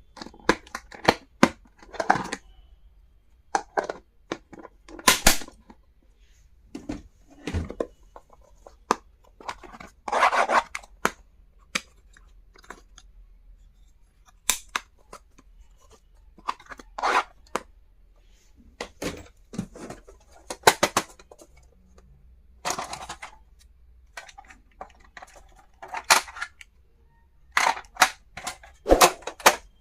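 Stationery items and their packaging being handled and unboxed: scattered sharp clicks and taps with short bursts of rustling and tearing, irregular and with pauses between them.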